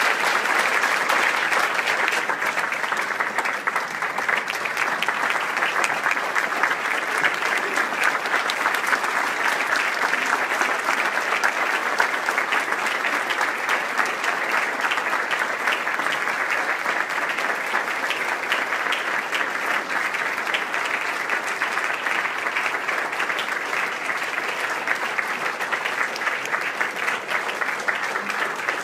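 A large audience applauding: long, steady, dense clapping that starts all at once and keeps up without letting off.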